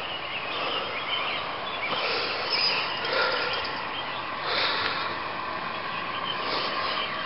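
Birds chirping now and then over a steady background hiss of outdoor ambience.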